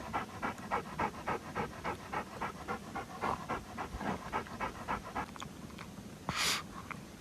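A dog panting quickly and evenly, fading toward the end, with a brief rushing noise near the end.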